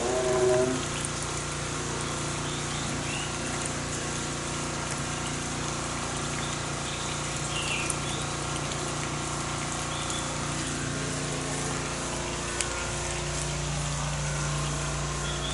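Steady mechanical hum over a constant rushing noise, with a few short, faint high chirps scattered through.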